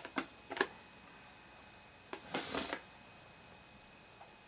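Plastic golf discs clacking against each other as they are handled and unpacked from a box: two sharp clacks near the start, then a few more with a brief rustle about two seconds in.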